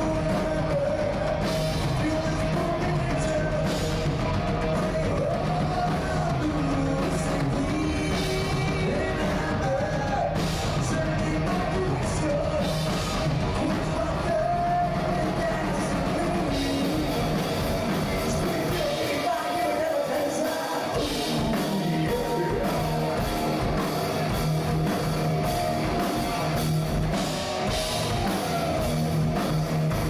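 Rock band playing: a singer's vocal over drums and guitars.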